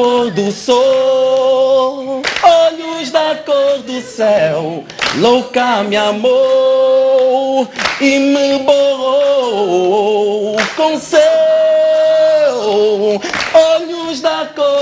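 A man singing a slow, melodic song with long held notes and slides between pitches, accompanied by his own nylon-string guitar.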